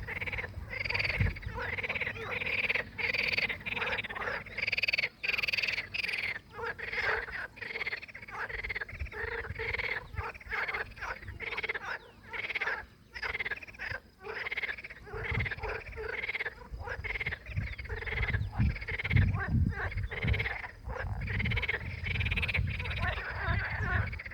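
Frogs croaking in a dense, continuous run of repeated calls, with a low rumbling noise joining in the second half.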